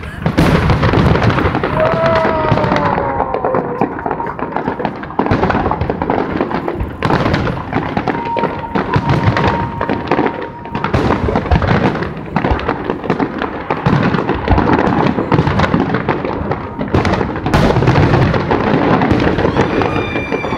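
A rapid barrage of aerial firework shells bursting, booms and crackle packed so close they overlap into one continuous loud rumble with no pauses.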